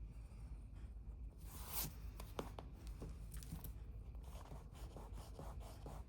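Pencil sketching on paper, faint: one longer stroke about a second and a half in, then a run of short, light scratching strokes.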